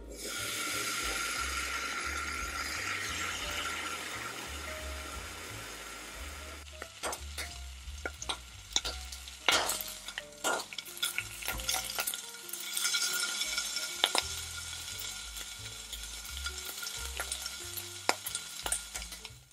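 Thin bacon slices sizzling in a hot nonstick frying pan. The sizzle starts suddenly as the slices go in, and partway through it gives way to sharp clicks and taps of silicone-tipped tongs against the pan as the slices are turned, before the sizzle comes back.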